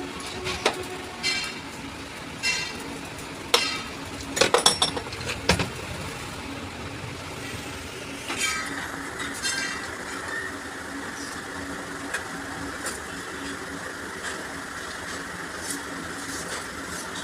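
Metal tools and parts clinking in short, irregular knocks, with a quick run of them about four to five seconds in, over a steady low hum. About eight seconds in, a steady hiss starts and keeps going.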